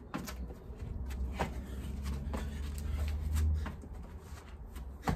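Scattered thuds and scuffs of feet and hands landing on paving slabs and an exercise mat during burpees, over a low rumble of wind on the microphone. A single sharp clack near the end, as sunglasses fall onto the mat.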